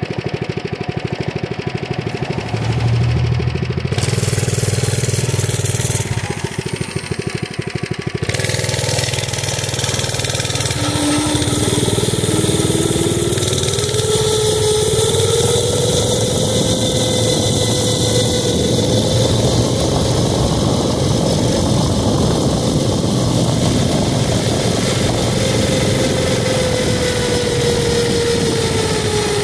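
Mini bike's small engine running as it is ridden, its pitch climbing about a third of the way in as it speeds up, holding steady, then easing off slightly near the end. A broad rushing noise, typical of wind over the microphone on a moving bike, runs under the engine.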